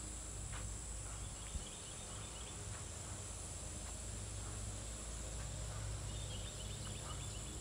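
Steady high-pitched drone of summer insects in tall grass and trees, with a low rumble underneath.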